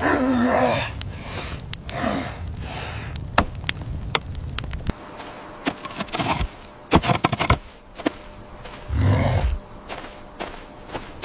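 Low grunting voice sounds near the start and again about nine seconds in, with a run of sharp scrapes and knocks between them, the densest cluster about six to seven and a half seconds in.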